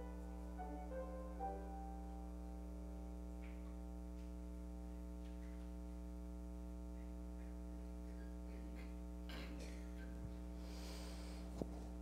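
Soft keyboard music: a few quiet notes at the start, then a long held chord that sustains. Some faint rustling and a small click come near the end.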